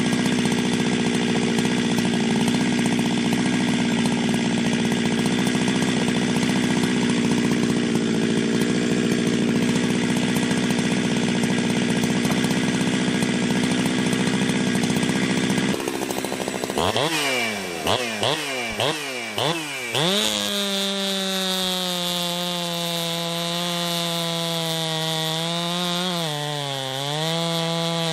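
Ported Jonsered 2071/2072 two-stroke chainsaw running steadily at high revs for about sixteen seconds. It then drops off and is revved up and down about four times, then runs steadily again at a lower pitch, dipping briefly near the end.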